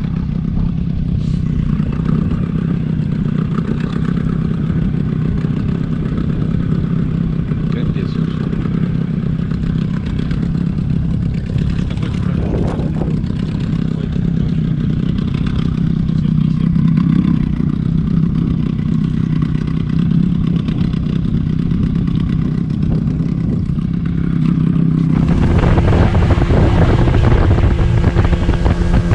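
Outboard motor of a tiller-steered boat running steadily at trolling speed. About 25 seconds in, a louder rushing of wind and water comes in over the engine.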